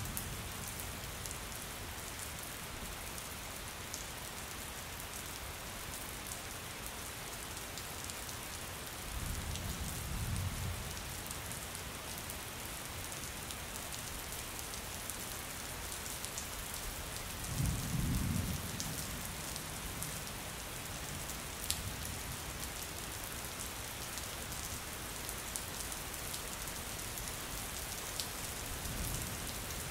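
Steady rain falling on a hard surface, with two brief low rumbles of thunder, about a third of the way in and again just past the middle.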